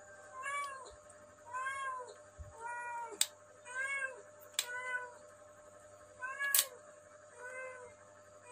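A cat meowing over and over, about once a second, each call rising and then falling in pitch. Three sharp clicks fall in between, the loudest about six and a half seconds in.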